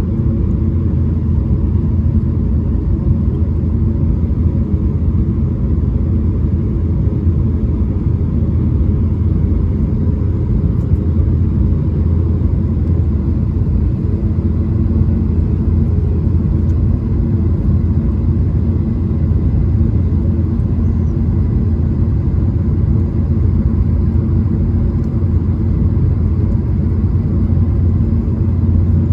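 Steady cabin rumble inside an Airbus A220-300, with its Pratt & Whitney PW1500G geared turbofans running and a faint steady whine over the low drone.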